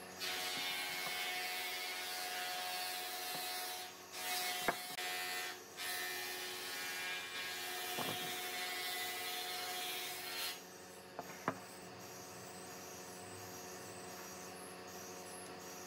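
An electric power tool's motor running steadily with a high whir, dropping out briefly twice and stopping about ten seconds in. A few light ticks follow.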